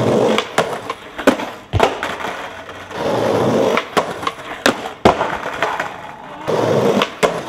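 Skateboard wheels rolling over brick pavers and concrete, with stretches of grinding noise against a concrete ledge. Sharp clacks and smacks of the board hitting the ground and the ledge come throughout, several of them loud.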